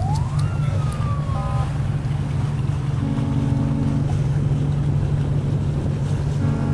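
A motorboat's engine runs steadily under way, with wind and water noise. Near the start a brief tone rises and then falls. About three seconds in, a short pitched sound is heard.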